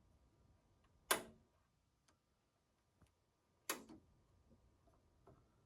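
Front-panel switches of a Kikusui dual-trace oscilloscope clicking as its settings are changed: two sharp clicks, about a second in and again near four seconds, with a few faint ticks between.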